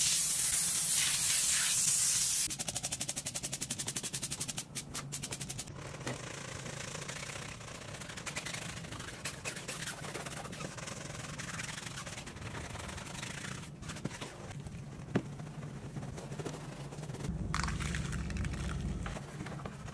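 A spray hisses onto the wheel and tyre for about two and a half seconds, followed by a few seconds of rapid clicking. After that, brushes scrub a wet, soapy alloy wheel and tyre, a steady wet rubbing and scraping with occasional knocks of the brush against the rim.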